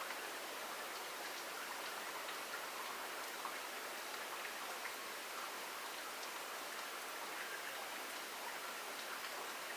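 Steady rain falling, with a constant hiss and many small drop ticks scattered through it.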